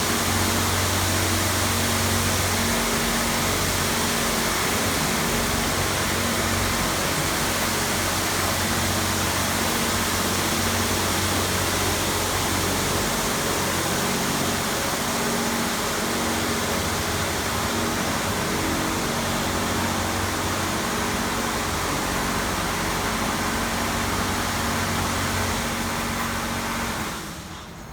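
S9 touchless car wash machine running: a steady hiss of high-pressure water spray over a low pump-motor hum that shifts in steps every few seconds, dropping away near the end.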